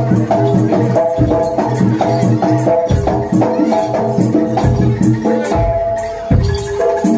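Live jaranan gamelan music played loudly: short tuned notes struck in a repeating melodic pattern over deep, regular drum beats.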